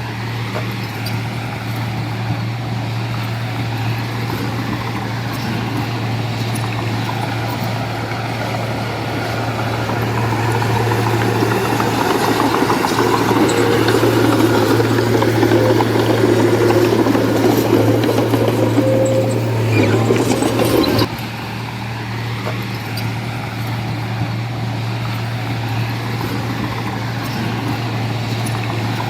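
Heavy diesel engine running steadily with a low drone. A louder, noisier stretch builds up about a third of the way in and cuts off suddenly about two-thirds through.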